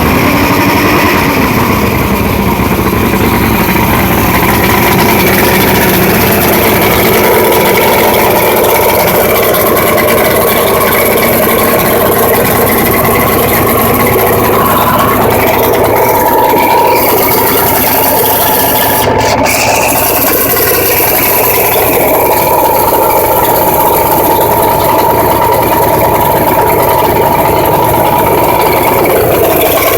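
Six-cylinder boat engine idling steadily just after starting. The owner suspects a faulty cylinder: the tachometer reads only about 1,350 rpm on the wires of cylinders 1 and 4.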